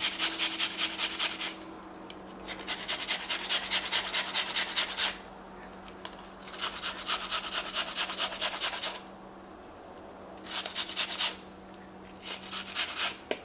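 Half an onion being grated on a flat metal hand grater: quick, rhythmic scraping strokes, about five a second, in several short runs with brief pauses between them.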